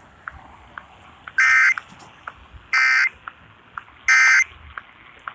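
Emergency Alert System end-of-message data burst, sent three times over broadcast radio: three identical short bursts of two-tone digital chirping, each about a third of a second long and about 1.4 seconds apart, over faint radio hiss. The bursts are the signal that the alert is over.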